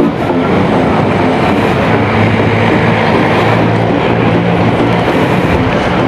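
Honda PCX 160 scooter's single-cylinder engine running at a steady level as the scooter pulls away slowly.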